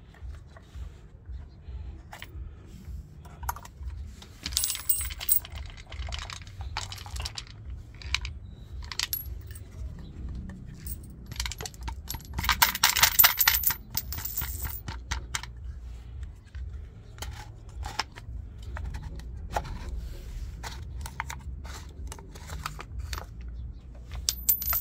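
Plastic washing-machine drain pump and filter housing being handled and fitted together: a run of sharp clicks, taps and rattles, with two longer stretches of rattling and scraping about five seconds in and again near the middle, the second the loudest.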